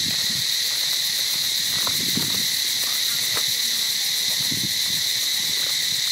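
Steady, high-pitched drone of a forest insect chorus, unbroken and even, with a few faint low sounds about two seconds in and again near four and a half seconds.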